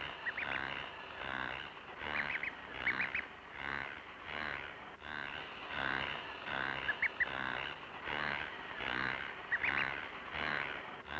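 Ducklings peeping in quick runs of three or four high, rising chirps, over a low call from the mechanical toy duck that repeats steadily about every three-quarters of a second.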